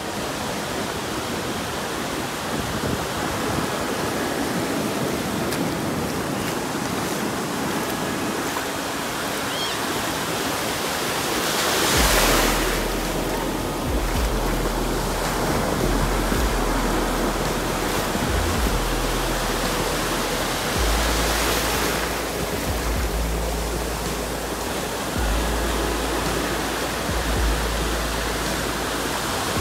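Ocean surf breaking and washing up the beach at the water's edge, a steady rushing wash with a louder crash about twelve seconds in. After that, wind buffets the microphone in repeated low rumbles.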